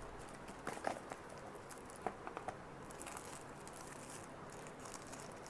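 Light clicks, taps and rustling of a phone's cardboard box and plastic packaging being opened and handled as the phone is lifted out.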